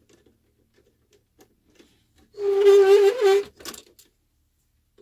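Electric steering servo of a WPL B-36 RC truck whining with a steady, slightly wavering buzz for about a second as the steering is worked, starting a little over two seconds in and ending with a click. A few faint clicks of handling the model come before it.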